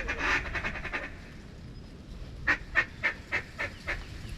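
Duck calling: a fast rattling chatter for about the first second, then a string of six quacks in quick succession near the end, the kind of feed chatter and quack series blown on a mallard duck call to bring in passing ducks.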